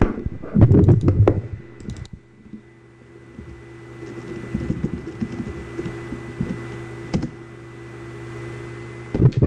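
Typing on a laptop keyboard: a quick run of key clicks, then scattered clicks, over a steady low hum and a faint high whine.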